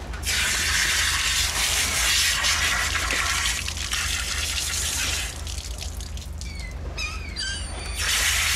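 Garden hose spray nozzle rinsing a freshly gutted whole vermilion snapper, the water spraying and splashing over the fish. The spray stops at about five seconds and starts again near the end, and in the gap a few short gull calls are heard.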